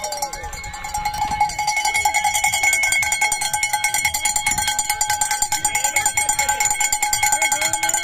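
A cowbell shaken rapidly and without a break, a fast run of metallic rings that grows louder about a second and a half in.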